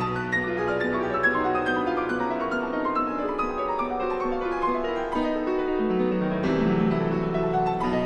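Background music: solo piano playing a flowing, classical-style melody of many quick notes.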